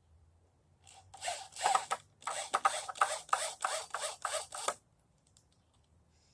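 A quick run of about ten rasping strokes, roughly two or three a second, that stops abruptly.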